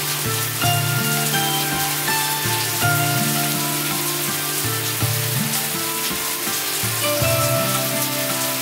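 Steady rain falling, a continuous even hiss. Soft background music of held notes that change every second or so plays over it.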